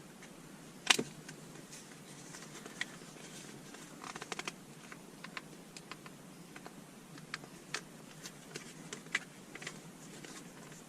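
Flat screwdriver clicking and scraping against the plastic parts of a Mercedes gear shift knob while pushing in its retaining pins: scattered light clicks, the loudest about a second in, and a quick run of clicks around four seconds in.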